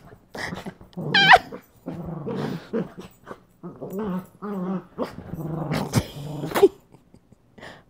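Small long-haired dogs play-growling while wrestling, in a run of short growls with one higher yip about a second in.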